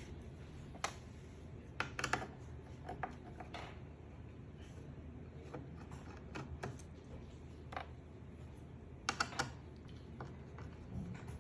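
Irregular light clicks and taps of hands handling computer hardware and tools, a few of them in quick clusters of two or three.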